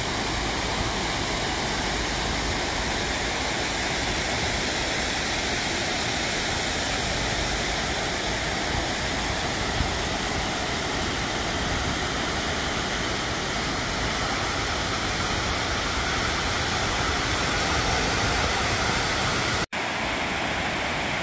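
Steady rush of water pouring over a low dam spillway into the pool below. It breaks off for an instant near the end.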